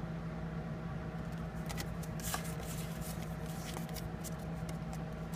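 Pokémon trading cards being handled and slid across one another: soft, scattered rustles and light clicks.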